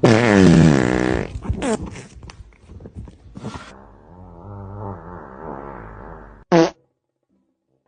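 An animal's raspy, wheezing vocal sounds: a loud cry falling in pitch over the first second, choppy breathy noises, then a wavering groan-like sound, cutting off abruptly with a short blip a little before the end.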